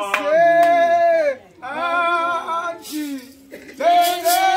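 Voices singing a hymn, holding long notes in phrases of about a second, with short breaks between them.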